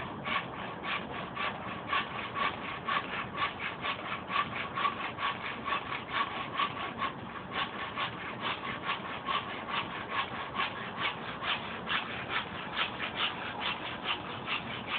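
Hand saw cutting through the end of a dried tree limb, trimming off the cracked part, in quick, even back-and-forth strokes of about three to four a second.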